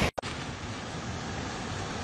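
Strong storm wind rushing through trees and buffeting the microphone: a steady noisy rush, broken by a brief dropout at the very start.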